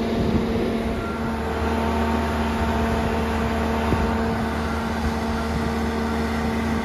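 Boat travel lift's engine running steadily as it carries a hauled-out boat in its slings: a constant mechanical hum, with a deeper drone joining about a second in.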